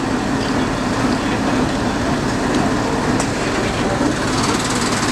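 A motor running steadily with a low drone.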